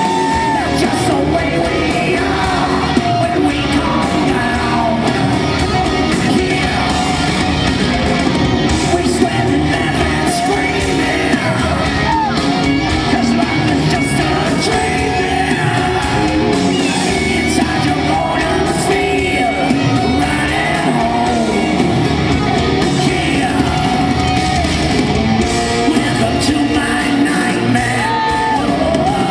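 Live rock band playing loud and steady, with a male lead singer singing into a handheld microphone, heard through the echo of a large hall.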